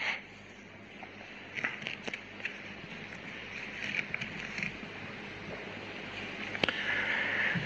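Pages of Bibles being leafed through: soft paper rustling with scattered small crackles and ticks, over a steady hiss.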